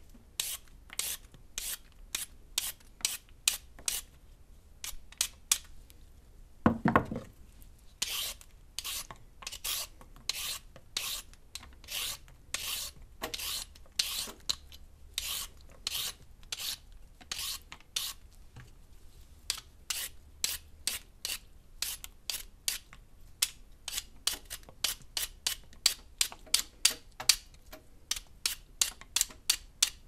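A vegetable peeler scraping strips off a carrot in short repeated strokes, about two a second, quickening near the end. Once, about a quarter of the way through, there is a duller knock.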